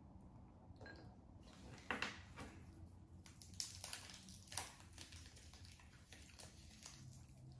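Faint, scattered small clicks and crackles of a chocolate wrapper being peeled off and the milk chocolate pieces broken by hand, with the sharpest few about two to five seconds in.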